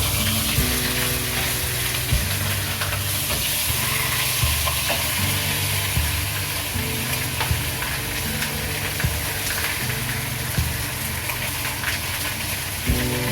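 Food sizzling in hot oil in a pan, steadily, with occasional light clicks of a utensil stirring it.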